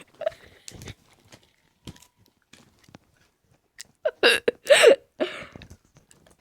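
A person chewing and biting something crunchy close to the microphone, with scattered short clicks, then a few short, loud vocal sounds a little past halfway.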